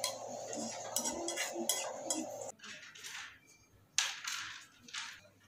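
Spatula scraping and clinking against a non-stick wok as fried shallot-and-garlic oil is emptied into a glass jar, over a steady hum. About two and a half seconds in it gives way to a few brief swishes and clicks of clothes and plastic hangers being taken off a drying rack.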